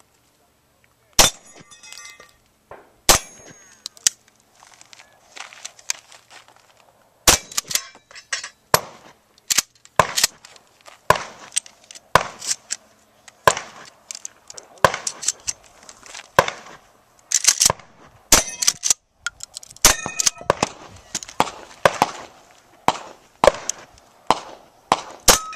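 A long, irregular string of pistol and pump-action shotgun shots, some in quick pairs. Several shots are followed by a short metallic ringing.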